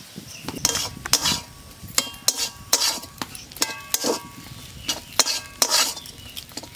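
Metal spatula scraping and stirring crumbly ground moong dal in a metal kadai as the kachori filling fries, about two strokes a second, with a brief metallic ring from the pan around the middle.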